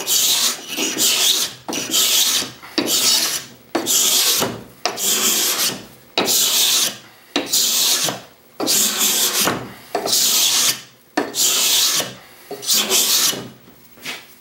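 Stanley No. 80 cabinet scraper pushed hard along a mahogany board: a rasping scrape about once a second, about a dozen strokes, each one lifting thick curled shavings.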